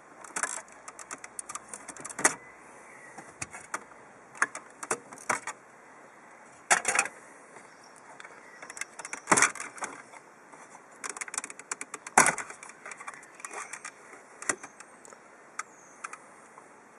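Plastic dashboard trim bezel around a Toyota RAV4's radio being pried off by hand: irregular clicking and rattling, with a few louder snaps as its clips let go.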